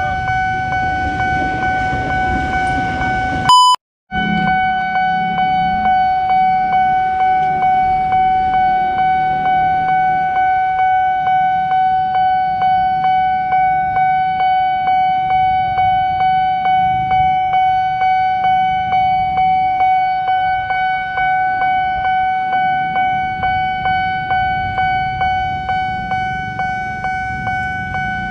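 Railway level-crossing warning bell ringing continuously in even, repeated strokes while the barrier is down, over a low rumble of traffic. It breaks off for an instant about four seconds in.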